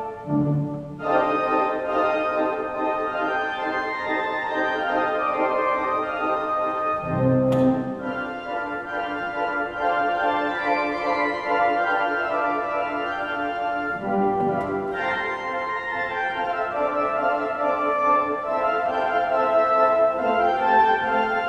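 Large pipe organ playing a march: many sustained notes at once, with short accented low notes about every seven seconds.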